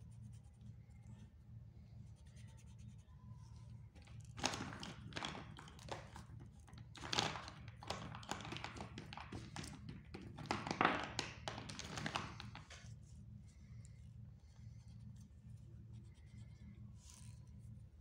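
Pink oil pastel crayon scratching on drawing-book paper in many short colouring strokes, starting about four seconds in and stopping near thirteen seconds, over a faint low hum.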